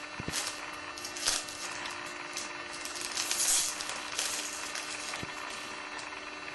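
Chromium trading cards being handled and slid across one another: a series of short dry swishes, with a longer rustle about three seconds in, over a steady low electrical hum.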